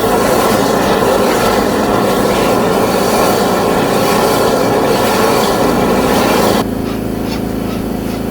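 High-pressure drain-jetting machine running loudly, a dense hiss over a steady engine hum. About six and a half seconds in, the hiss drops away and a quieter hum carries on.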